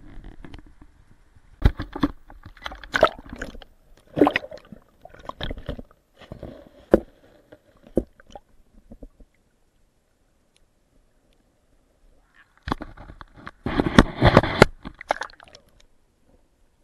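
River water sloshing and splashing around a waterproof camera as it is dipped under the surface beside a hand-held fish. It comes in irregular bursts, goes quiet for a few seconds past the middle, then ends in a dense bout of splashing.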